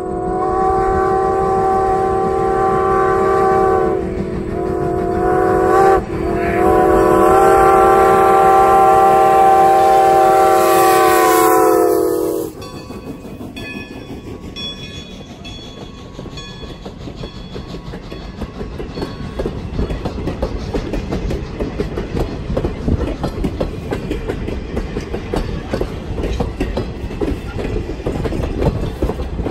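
Steam whistle of 2-10-0 steam locomotive No. 90 blowing one long blast of about twelve seconds that dips twice before cutting off. The train then rolls by with a rhythmic clatter of wheels that grows louder near the end.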